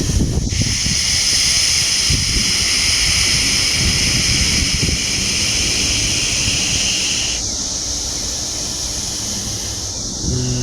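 Wind buffeting the microphone, a continuous low rumble, with a steady high hiss over it that stops about three quarters of the way through.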